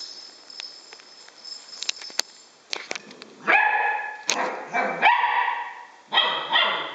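A puppy barking several times in the second half, short high-pitched barks in quick clusters. Before that come a few light clicks and jingles from a bell-filled cat ball on the tile floor.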